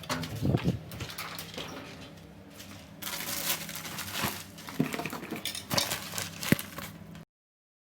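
Scattered clicks and clacks of small hard objects at irregular intervals, cutting off suddenly about seven seconds in.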